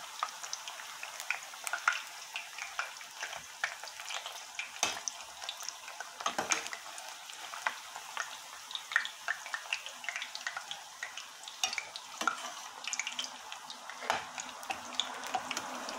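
Plantain slices sizzling in hot oil in a stainless steel pot: a steady hiss full of small crackles and pops. A slotted metal spoon now and then clinks against the pot as the fried pieces are lifted out.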